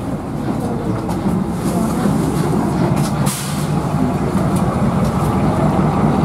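Narrow-gauge diesel locomotive idling with a steady low drone. A brief hiss is heard about three seconds in.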